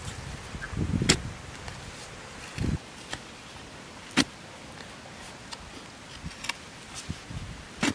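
Hand digging tool with a bamboo handle and metal blade being driven into dry red soil: a couple of dull thuds as the blade bites in, with scattered sharp clicks of the blade and loosened clods.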